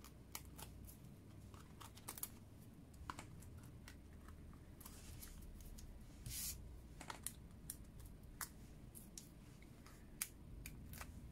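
Faint handling noises of papercrafting: small sharp clicks and ticks as foam adhesive dots are peeled from their backing sheet and pressed onto cardstock. There are two brief rustles of paper about five and six and a half seconds in.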